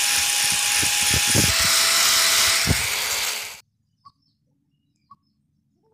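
Handheld angle grinder running with a steady whine as its disc works over the rusty steel of a curved blade. The whine dips slightly in pitch partway through and is broken by a few low knocks, then cuts off abruptly about three and a half seconds in. After that it is near silent apart from a few faint short chirps.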